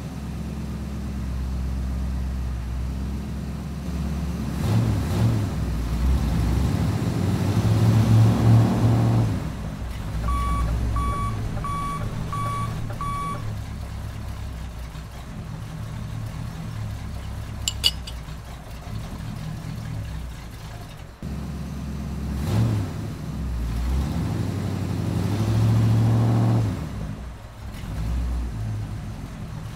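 Tractor engine sound running steadily and swelling twice as it revs, with five short evenly spaced beeps about ten seconds in.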